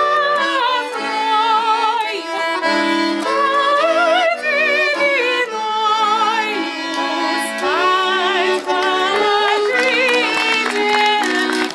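Music: a melody with a wavering vibrato over held chords.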